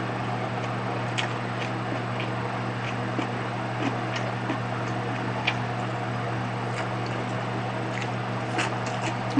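Chewing a mouthful of gimbap: faint, irregular mouth clicks and smacks over a steady low hum.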